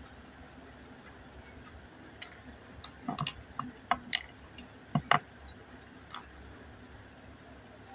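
A quick run of about ten light clicks and taps from small hard objects being handled, from about two seconds in to about six seconds, the loudest a pair near five seconds, over a faint steady room hum.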